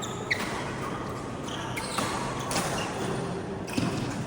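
Badminton rally: several sharp racket hits on the shuttlecock a second or two apart, with brief high-pitched shoe squeaks on the court floor.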